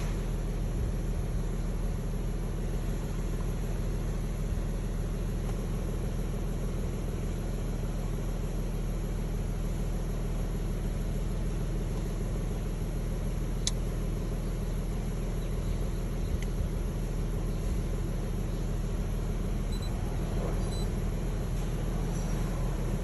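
Lexus car engine and exhaust idling steadily, a low even rumble with no revving, checked for its exhaust sound. A single sharp click about halfway through.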